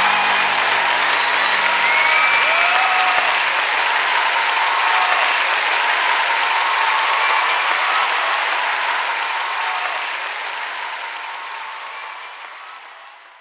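Audience applause with a few cheers, the last notes of music dying away under it in the first seconds. It fades out steadily over the last five seconds.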